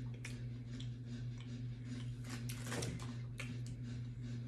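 Quiet room with a steady low hum and scattered faint clicks and ticks.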